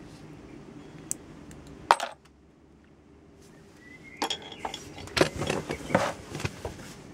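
Small hard resin orgonite pieces and metal bits clicking and clinking as they are handled and set down in a cardboard box: a sharp click about two seconds in, then a quick run of clicks and knocks near the end.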